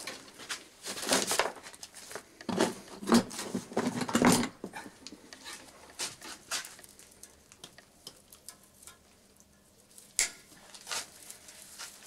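Dry heather twigs of a broom bundle crackling and rustling as the bundle is handled and bound, with dense clusters of scratchy crackles over the first few seconds, then a few scattered clicks.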